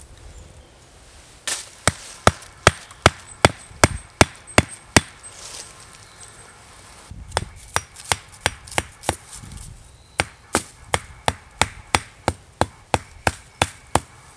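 The back of a hatchet hammering a carved wooden stake into the ground: sharp wooden knocks at about two to three a second, in three runs of blows with short pauses between.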